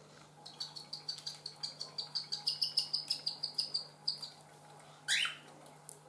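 Baby cockatiel begging while being fed by an adult: a rapid run of high chirps, about six or seven a second, growing louder and then fading. A little after five seconds comes one short, louder call that rises in pitch.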